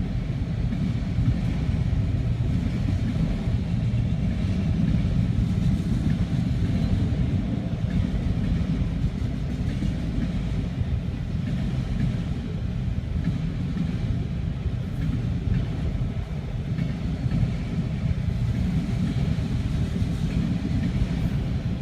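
CSX freight train of autorack cars rolling past, a steady low rumble that holds even throughout.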